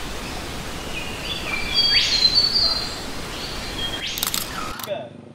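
Birds chirping over a steady outdoor hiss, with a cluster of short high calls about two seconds in; the sound cuts off shortly before the end.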